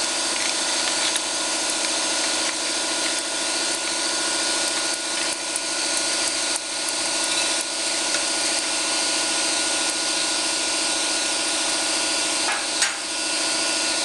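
Shop air compressor running with a steady, even-pitched drone, with a few faint clicks and a short knock near the end.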